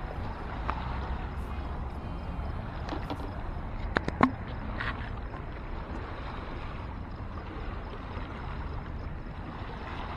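Steady low rumbling outdoor background noise, with a few sharp clicks about three to four seconds in, the loudest two close together.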